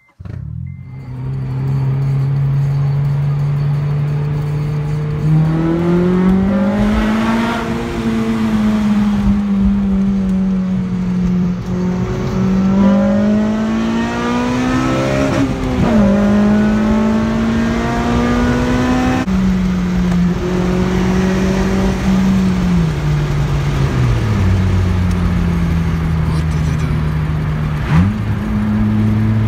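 A 2007 Honda Civic Si's four-cylinder engine with its muffler removed, heard from inside the cabin as the car is driven. The exhaust note idles, climbs in pitch as the car pulls away a few seconds in, then drops several times at the gear changes.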